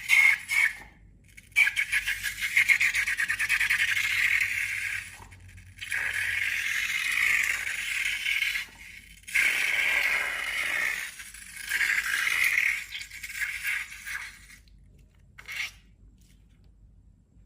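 Crackly scraping from slime being worked by hand, in several stretches of one to three seconds with short breaks between them, stopping near the end.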